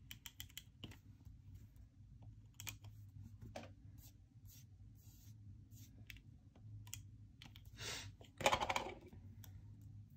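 Faint small clicks and light scratches of a correction tape dispenser being run and pressed across planner paper, with one short louder rustle of paper near the end.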